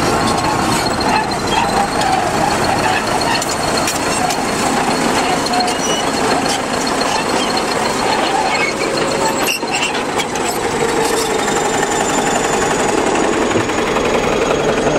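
Crawler bulldozer working close by: its diesel engine running under load while the steel tracks clank and squeal as it pushes a blade-load of soil and stones.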